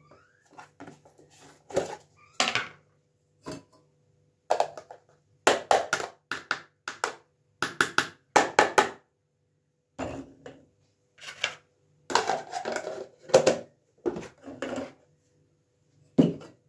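Steel kitchen utensils being handled on a gas stovetop: a mesh strainer, a small steel cup and a pot of milk knocked and set down in a string of short metallic clinks and knocks.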